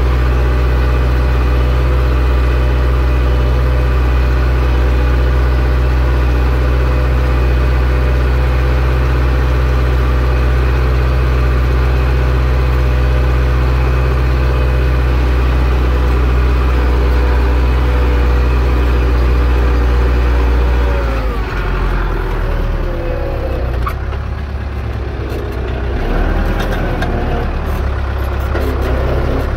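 Zetor 6245 tractor's four-cylinder diesel engine running steadily under plowing load. About 21 seconds in, the engine note drops, then rises and falls in pitch.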